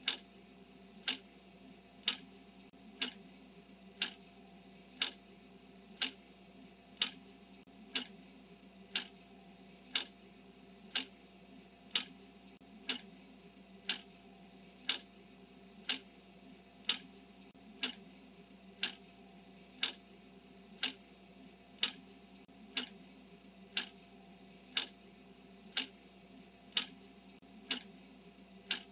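Countdown timer ticking: a sharp, even tick once a second, each one marking a second counted off, over a faint steady hum.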